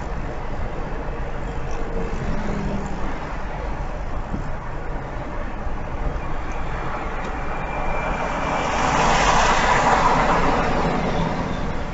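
Car driving on a road, heard from inside the cabin: steady low engine and tyre noise, with a louder hiss that swells up about eight seconds in and eases off near the end.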